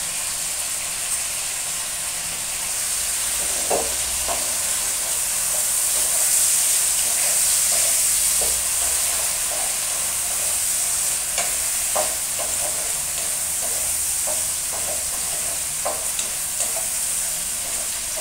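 Oil sizzling steadily in a wok as yardlong beans and fried sardines fry, with a wooden spatula stirring and now and then knocking and scraping against the pan.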